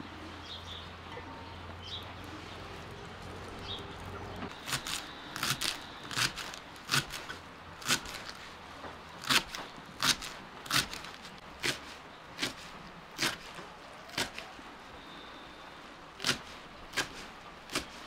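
Kitchen knife chopping fresh cilantro on a thick wooden chopping block: sharp, irregular knocks of the blade on the wood, about two a second at first and thinning out later, starting about five seconds in. A few faint bird chirps before the chopping starts.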